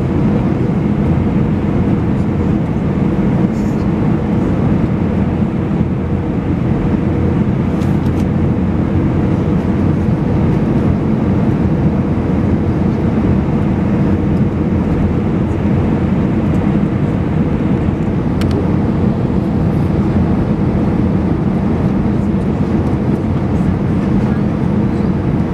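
Steady cabin noise inside an Airbus A320 airliner descending to land: the low, even drone of the engines and airflow heard from a window seat by the wing, with a faint steady hum.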